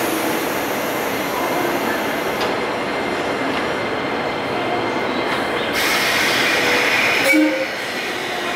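JNR 185-series electric train standing at a station platform, its equipment giving a steady noise. About six seconds in a loud hiss starts, then cuts off sharply with a clunk about a second and a half later.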